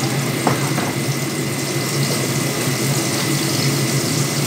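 A noisy kitchen appliance running steadily: a low hum under a rushing hiss, with a faint click about half a second in.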